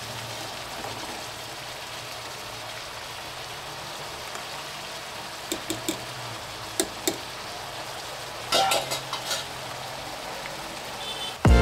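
Food sizzling in oil in a cooking pot with a steady hiss. A few sharp clicks of a utensil against the pot come a little after halfway, then a short burst of ringing metal clinks; music starts abruptly right at the end.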